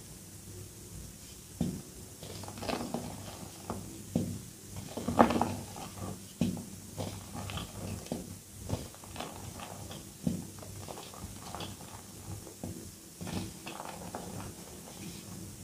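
Hands crushing a block of reformed gym chalk into powder: irregular soft crunches and crumbling crackles as the block gives way, the loudest crunches about five seconds in.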